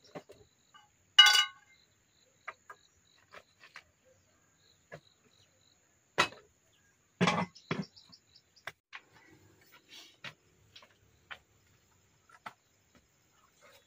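Dishes and kitchenware being set down on a bamboo rack: a loud ringing clink of a plate about a second in, then heavier knocks and thuds as a pan and a plastic basin are put down, with scattered small clicks between.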